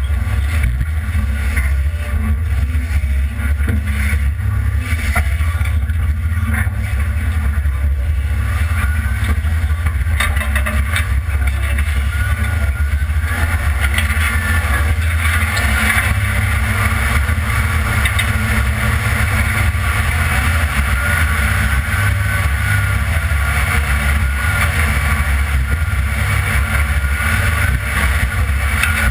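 A 1982 Ford F-150's engine runs steadily with a deep rumble as the truck drives off-road, with scattered brief knocks and rattles.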